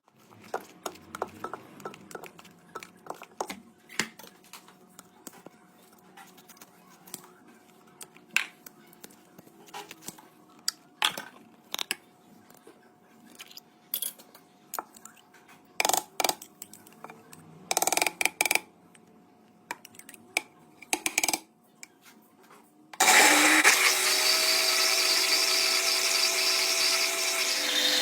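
Scattered clicks and knocks of kitchen utensils and containers being handled, then about 23 s in an electric blender switches on and runs steadily and loudly.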